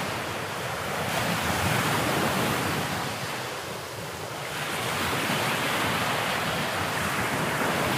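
Ocean surf: waves washing onto a beach as a steady rush that eases off around the middle and swells again.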